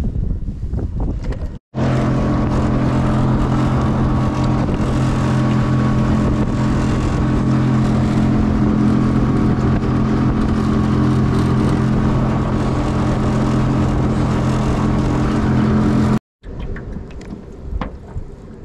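Jon boat's motor running at a steady speed as the boat travels, a loud, even hum with a fixed pitch. It starts and stops abruptly, about two seconds in and about two seconds before the end, with quieter boat and water sounds around it.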